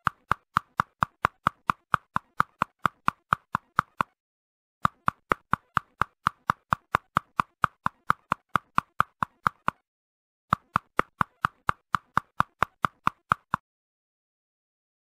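A rapid, even series of short pitched plops, about five a second, in three runs with brief pauses between them, stopping a little before the end.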